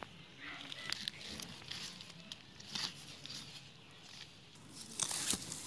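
Digging in damp soil: scattered crunches and scrapes of a tool breaking earth, with a louder cluster of strikes about five seconds in.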